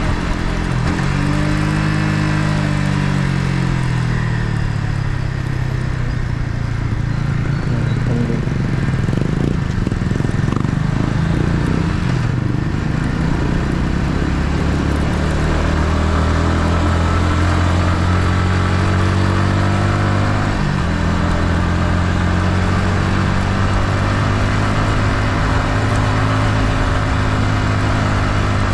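Yamaha MT-15's single-cylinder engine on its stock exhaust, heard onboard while riding. The engine note rises and falls in the first few seconds, then runs fairly steady, with a sudden step in pitch about twenty seconds in.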